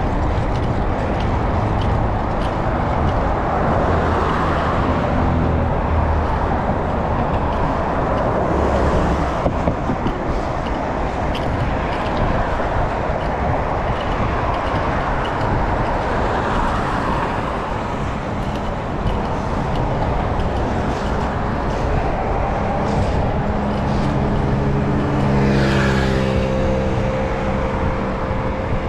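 A motor vehicle running, with a steady rush of road and wind noise. About three-quarters of the way through, a steady engine hum with a clear pitch comes in above the noise.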